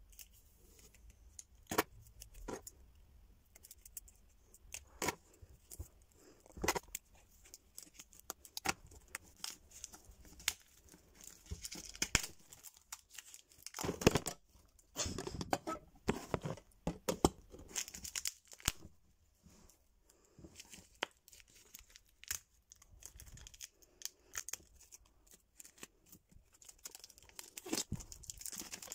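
Plastic shrink-wrap being snipped with scissors and torn off a boxed book, with crinkling and rustling of the film between scattered sharp snips and clicks, loudest about halfway through. The tight wrap is hard to get off.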